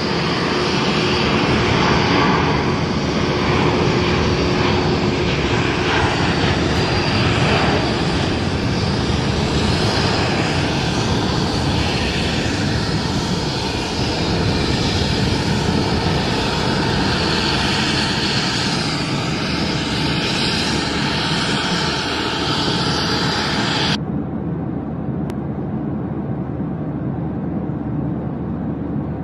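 Airbus A330-941's Rolls-Royce Trent 7000 jet engines running loud and steady as the airliner rolls along the runway. About three-quarters of the way through, the high end cuts off suddenly, leaving a duller, slightly quieter rumble.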